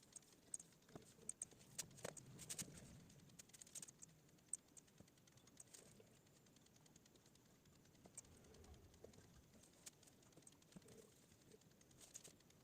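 Near silence with faint, irregular computer mouse clicks, a quick cluster in the first few seconds and only a few after that.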